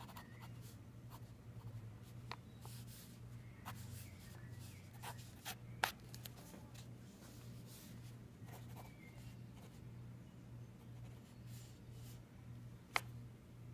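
Pen scratching across sketchbook paper in short, quick inking strokes, with two sharp clicks, one about six seconds in and one near the end, over a steady low hum.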